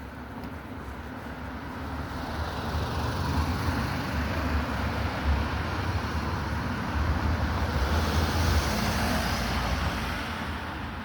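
A road vehicle passing: steady tyre and engine noise with a low rumble that swells over several seconds and fades near the end.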